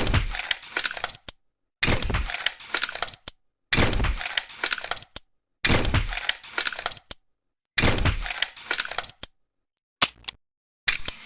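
Tranquilizer pistol sound effect: a sharp shot that trails off over about a second, repeated five times about every two seconds with dead silence between, then a few shorter clicks near the end.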